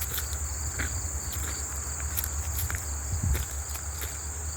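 A steady, high-pitched insect chorus runs throughout, over a low rumble and a few faint clicks.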